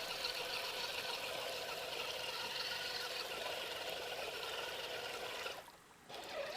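Axial AX10 RC crawler's electric motor and gears whining under throttle as its tyres churn through wet, slushy mud, with a watery sloshing. It cuts out briefly about five and a half seconds in, then starts again.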